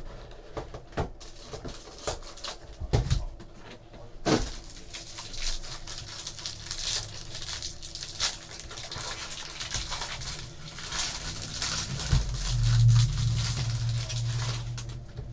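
Hands opening a sealed trading-card box and unwrapping its contents: a few sharp clicks and knocks, then continuous crinkling and tearing of wrapping. A low steady hum comes in near the end.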